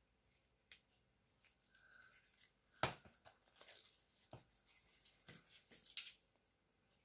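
Wide double-sided tape being pulled and torn off its roll and pressed onto card, with paper and card stock handled: scattered soft crackles and clicks, a sharp tearing snap about three seconds in, and more crackling rustles between five and six seconds.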